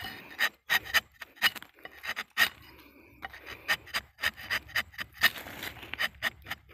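Rubber-tapping knife shaving a thin strip of bark along the tapping cut of a rubber tree, in quick short strokes of about three a second, with a brief pause a little before halfway.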